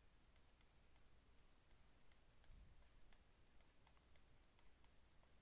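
Near silence, with faint, irregular ticks of a stylus tapping a tablet screen during handwriting.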